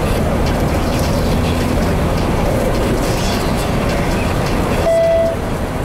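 In-cabin road and engine noise of a 2006 Opel Astra Coupe Bertone with a 2-litre engine, driving steadily along a winding road. About five seconds in, a short electronic beep sounds.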